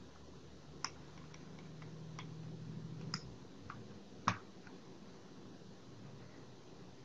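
Computer mouse clicks: about half a dozen separate, scattered clicks, the loudest about four seconds in, over a faint low hum.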